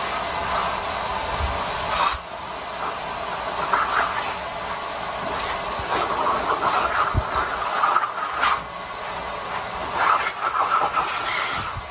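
Steady rush of air through a hose nozzle held at a golden retriever puppy. The sound swells briefly several times as the puppy opens its mouth at the nozzle and bites it.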